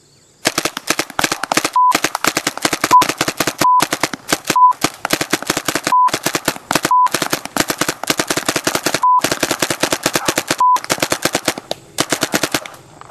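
Paintball gun firing rapid strings of shots in several long bursts with short breaks between them. Eight short beeps are cut in between the bursts.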